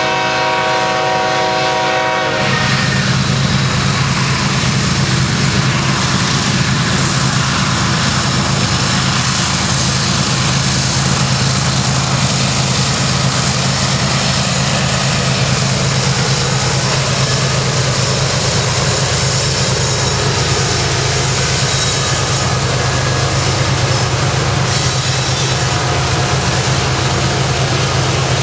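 BNSF diesel freight locomotive's multi-tone air horn sounding a chord that cuts off about two seconds in, then the steady low rumble of the diesel engines and the rolling of the loaded coal train's wheels as the cars pass.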